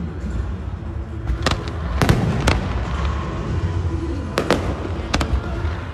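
Aerial fireworks shells bursting overhead: sharp bangs at about one and a half, two and two and a half seconds in, a close pair a little past four seconds and another about five seconds in, over a steady low rumble.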